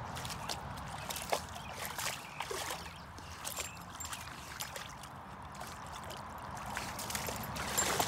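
Muddy water sloshing and splashing in irregular little strokes as a Bouvier des Flandres puppy wades in a shallow puddle, its head down in the water.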